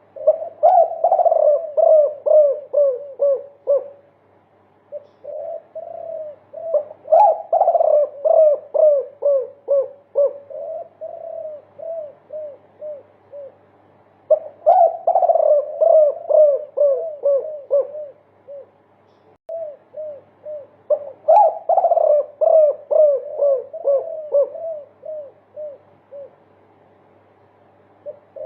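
Spotted dove (derkuku) cooing in long 'multi-kuk' phrases, each a quick run of short falling coo notes, about four a second, loud at first and trailing off. Four such phrases, with short pauses between. A faint steady hum runs underneath.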